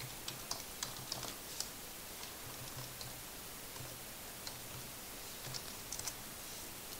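Typing on a computer keyboard: irregular key clicks, a quick run in the first second or two, then sparser taps, with a few more clicks about six seconds in.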